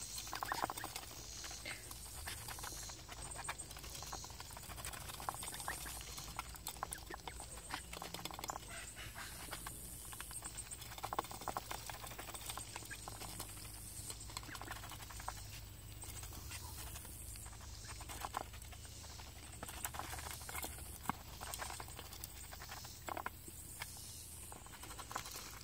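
Domestic ducks dabbling in a metal pan of feed pellets: a dense, irregular patter of bills clicking and scrabbling through the pellets against the pan.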